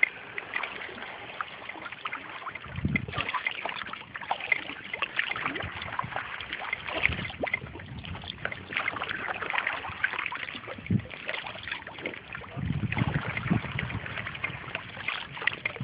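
Water lapping and splashing around an inflatable kayak, with many small drips and splashes, and low rumbles of wind on the microphone a few seconds in and again near the end.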